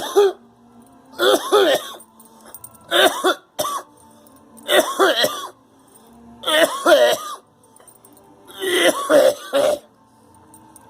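A man coughing in six fits, one about every one and a half to two seconds, each a quick cluster of coughs. He is coughing from a cold that keeps coming back.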